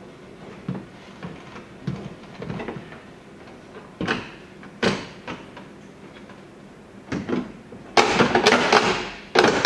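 E90 vacuum brake booster being handled and fitted against the firewall: scattered knocks and clunks, then, about eight seconds in, a loud run of scraping and rattling.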